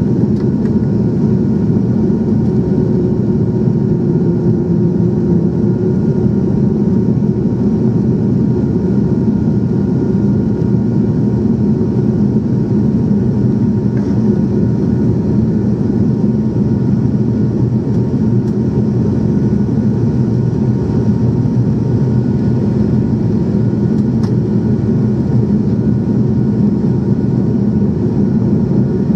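Cabin drone of a Mount Cook Airline ATR 72's turboprop engines and propellers on approach to landing. It is a loud, steady low hum with faint, even whining tones above it.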